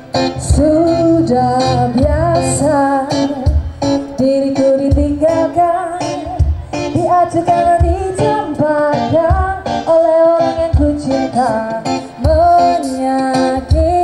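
Background song: a woman singing a melody over guitar accompaniment and a steady beat.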